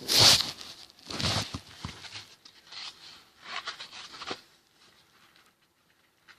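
Rustling and scraping from a plastic breadboard being handled, in several short bursts through the first four seconds or so.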